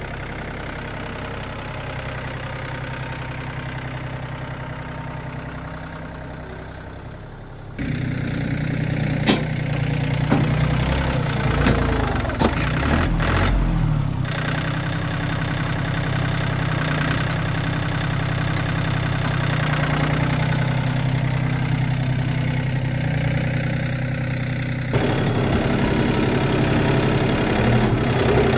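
John Deere 790 compact tractor's three-cylinder diesel engine running steadily while working the loader, getting louder about a third of the way in, with a few sharp knocks a little later.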